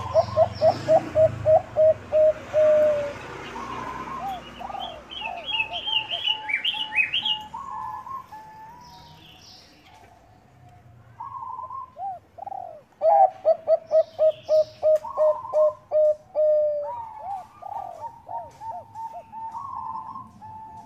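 Zebra dove of the Bangkok perkutut strain cooing: quick stuttering runs of about five notes a second, twice, linked by longer rising and falling coos. Higher chirps from another bird come in a few seconds in.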